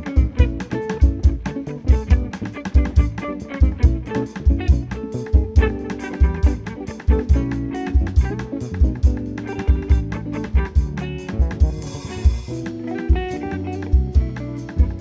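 Live instrumental band playing: electric guitar and bass over a drum kit keeping a steady beat, with a cymbal swell about twelve seconds in.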